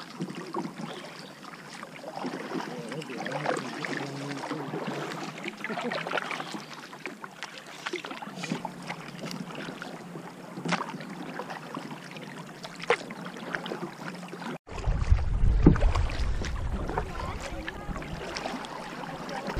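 Kayak paddle strokes on calm lake water: the blades dipping, splashing and dripping in irregular strokes. About fifteen seconds in the sound breaks off for an instant and a low rumble comes in.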